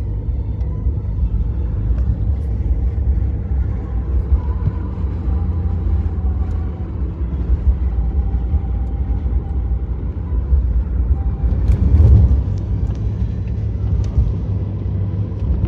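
Steady low road-vehicle rumble, swelling louder about twelve seconds in.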